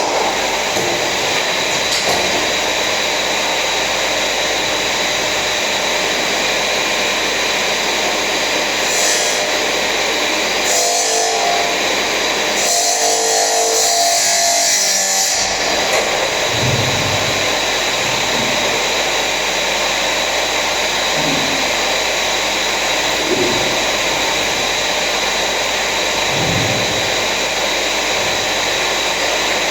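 Electric power tool running steadily, a continuous hiss with a faint high whine, turning brighter for a few seconds around the middle.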